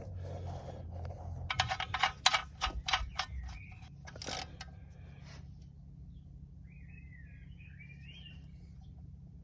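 Metal tools and parts being handled under a van: a quick run of clinks and knocks for a few seconds. Near the end comes a faint warbling chirp.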